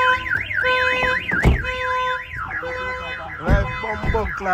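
Car alarm siren sounding, a fast up-and-down warble over alternating steady beeps that changes about halfway through to rapid falling chirps, with a few low thumps.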